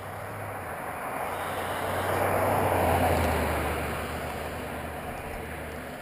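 A car driving past: tyre and engine noise swelling to a peak about three seconds in, then fading, its low hum dropping in pitch as it passes.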